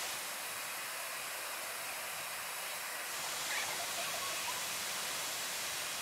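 Steady background hiss, with a few faint, goose-like honks from American flamingos a little past the middle.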